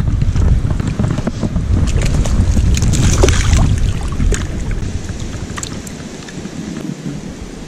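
Wind buffeting the microphone with a heavy low rumble that eases off over the last couple of seconds, over scattered small splashes and knocks as a rainbow trout is drawn in through shallow water and scooped into a wooden landing net.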